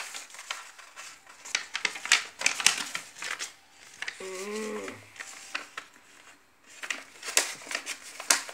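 Sheet of colour paper being folded and creased by hand on a table, with rustling and sharp crackles as it is handled and pressed flat. A brief voice sound about four seconds in.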